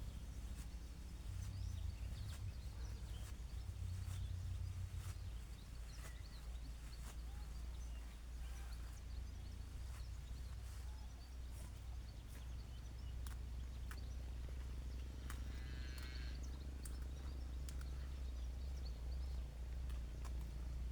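Outdoor ambience: a low, steady rumble of wind on the microphone with scattered light clicks and rustles. A short bird trill comes about sixteen seconds in.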